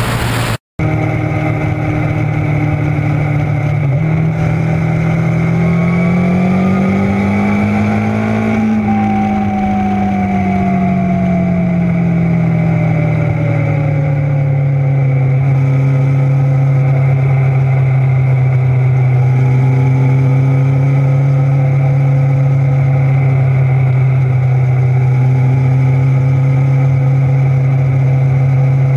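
Motorcycle engine running under way, heard close from a camera mounted on the bike. Its pitch climbs for a few seconds, eases back down, then holds steady at cruising speed through the second half.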